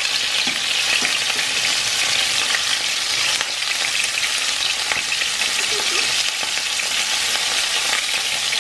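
Meat and bell-pepper skewers sizzling loudly and steadily in hot oil in a nonstick frying pan, with a few light clicks as metal tongs turn them.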